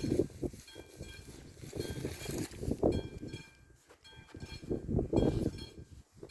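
Classic mechanical warning bell of an AŽD 71 level crossing ringing with repeated strikes, sounding the warning that a train is approaching. An uneven low rumble runs underneath.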